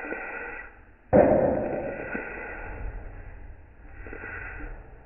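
Metal spoon stirring and scraping meat frying in a wok on a gas stove, with a sudden loud knock about a second in that fades away.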